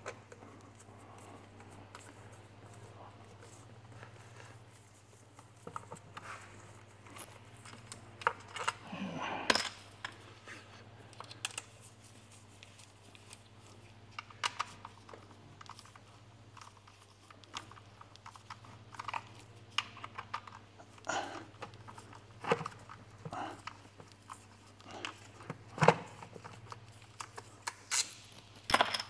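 Scattered clicks and small metallic knocks of a hand tool working the bolts that hold the mechatronics valve body of a ZF 6HP28 automatic transmission, some in short runs and a few louder ones, over a steady low hum.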